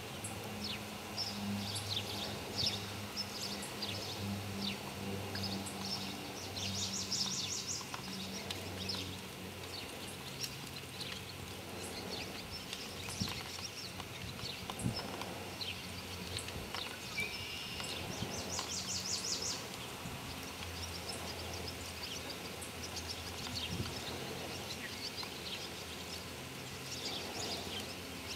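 Outdoor ambience of birds chirping, with two rapid high trills and scattered short calls, over a low steady hum.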